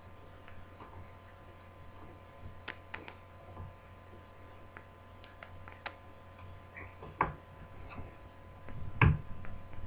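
Scattered light clicks and taps of a small screwdriver and plastic laptop parts as the fixing screws of a laptop screen assembly are undone, with a louder pair of knocks about seven and nine seconds in. A steady electrical hum sits underneath.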